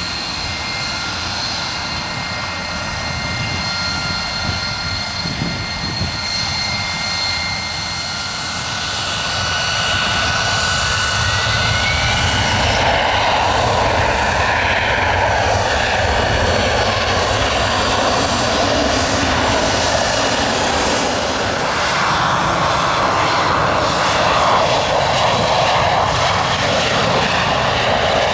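AV-8B Harrier II jump jet's Pegasus turbofan running with a steady high whine, then spooling up about ten seconds in to a louder rushing noise that climbs again near the end as the jet takes off.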